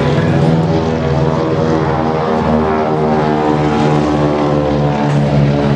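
Light-aircraft piston engine and propeller running steadily at a constant speed.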